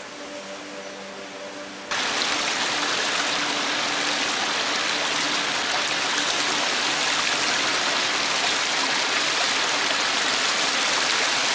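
A shallow stream splashing over rocks in a small cascade: a steady rush of water that cuts in suddenly about two seconds in.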